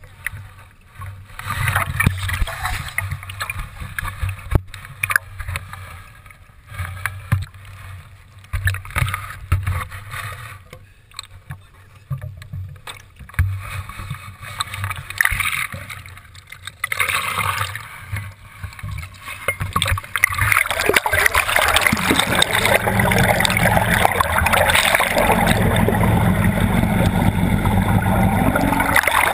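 Water sloshing and gurgling unevenly around a boat, then about twenty seconds in a steady, louder rush of water and boat noise takes over.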